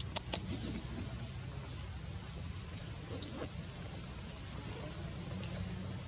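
High-pitched squealing from a baby macaque clinging to its mother: one long thin wavering cry that slides down in steps over the first three seconds, then two short squeaks.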